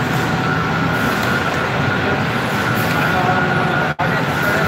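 Steady din of an industrial flatbread production line, with dough-handling machines and conveyors running and a constant high-pitched whine over the noise. The sound drops out for an instant near the end.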